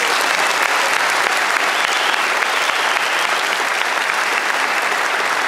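Audience applauding steadily: a hall full of people clapping after a person is introduced.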